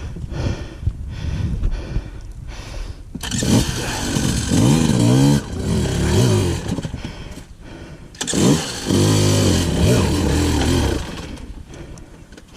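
Dirt bike engine revving hard in repeated bursts, the pitch rising and falling as the throttle is worked, with two long pushes as the bike climbs a rocky creek-bed waterfall.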